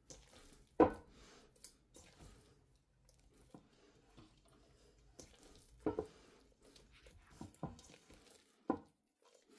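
Sticky, risen yeast bread dough being folded by a wet hand, its edges lifted and pressed into the centre: soft squelches and light slaps at irregular intervals, the loudest about a second in.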